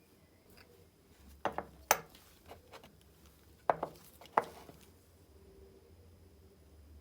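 Sharp clicks and taps of small metal parts being handled and set down on a hard work surface. They come in two short clusters about two seconds apart.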